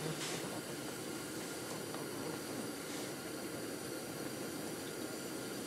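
Steady, even hiss.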